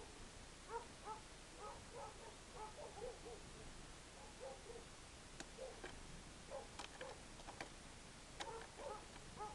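Faint, short, low-pitched bird calls repeated in quick succession, with a few sharp taps in the second half.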